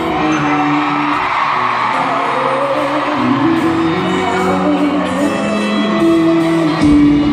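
Live arena concert heard from the audience: a woman singing with her band, holding long notes, while the crowd cheers and whoops.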